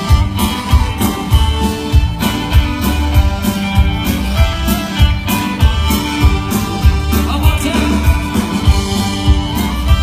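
Live country band playing amplified through a PA: electric guitars, bass and drums under a lead vocal, with a steady dance beat of about two drum hits a second.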